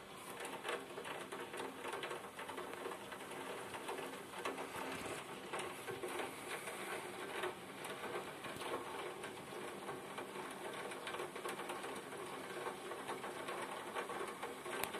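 Rain pattering in a thunderstorm: a steady hiss with a dense, irregular run of sharp drop ticks close to the microphone.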